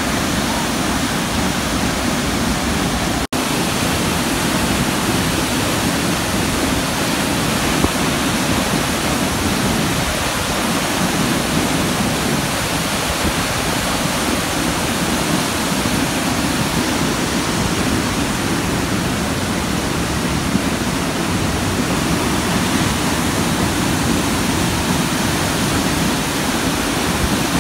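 A large waterfall pouring: a steady, dense rush of falling water, heaviest in the low range. There is a momentary break about three seconds in.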